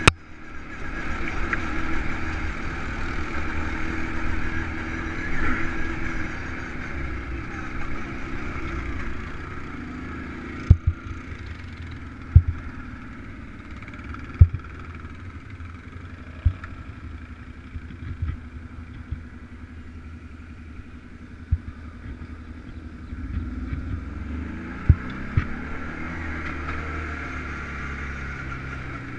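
ATV engine running steadily while riding a trail, louder at first, easing off in the middle and picking up again near the end. Sharp knocks come every second or two through the middle stretch.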